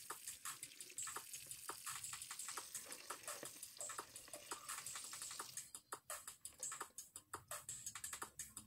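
Eggs clicking faintly against each other and a plastic bowl as they are rinsed under a running tap, with quick irregular clicks throughout; the hiss of the water stops about six seconds in.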